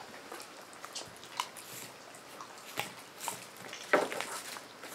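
A Siberian husky licking and chewing cupcake and icing off a wooden table top: scattered small mouth clicks, with one sharper knock about four seconds in.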